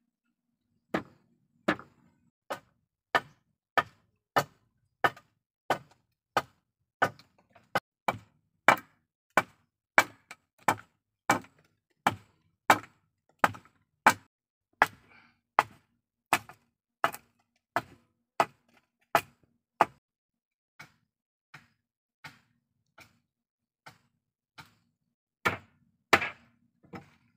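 Steady, evenly paced blows of a metal-headed hand tool on a bamboo pole of a bed frame, about one and a half to two strikes a second. The blows thin out to a few softer taps, then two loud strikes near the end.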